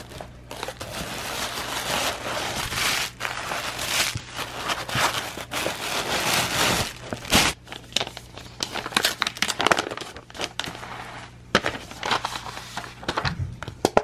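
Tissue paper and packing material crinkling and rustling as a mailed package is unpacked by hand. It is a dense, continuous rustle for about the first seven seconds, then turns to sparser, separate crackles as paper is handled.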